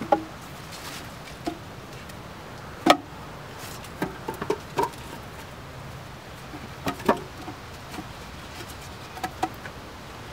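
Short cut logs knocking and clunking against each other as they are laid one by one across a stick-built chair frame: irregular wooden knocks, the loudest about three seconds in.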